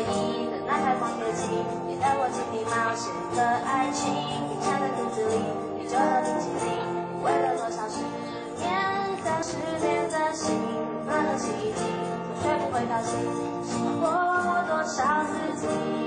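Live acoustic band music: a woman singing over strummed acoustic guitars, with a cajon keeping the beat.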